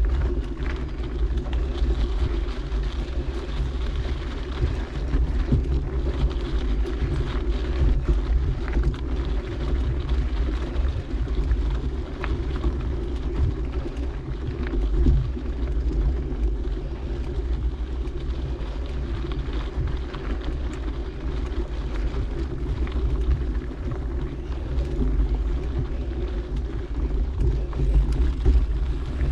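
Steady rumble of a mountain bike rolling over dirt singletrack, heard through a camera riding on the bike or rider, with wind buffeting the microphone and frequent small clicks and rattles from the bike over bumps.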